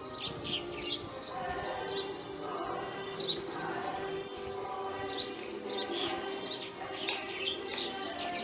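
Small birds chirping in quick, repeated short calls, over a steady background hum.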